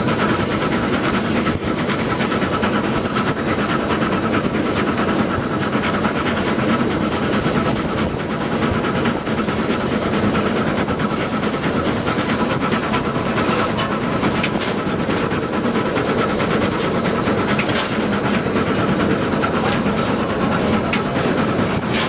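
A steam-powered vehicle running steadily, heard from its cab: a continuous rapid mechanical clatter with a thin, steady high-pitched tone over it.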